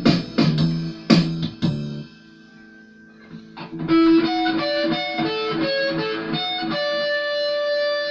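Ibanez AS73 semi-hollow electric guitar in the key of E: a few strummed chords, a short quiet pause with notes still faintly ringing, then a run of single picked notes ending on a chord left to ring out.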